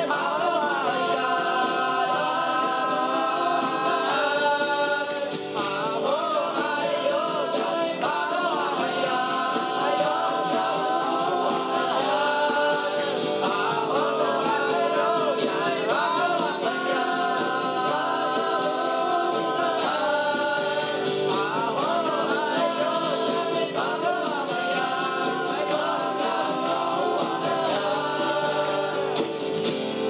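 A group of boys singing together in harmony, holding long notes, over acoustic guitar accompaniment.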